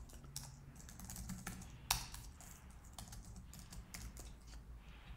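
Faint computer keyboard typing: irregular keystrokes as code is entered, one keystroke louder about two seconds in.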